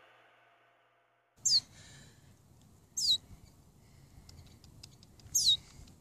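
A finch calling three times, each call a short, high, thin note that slides steeply down in pitch.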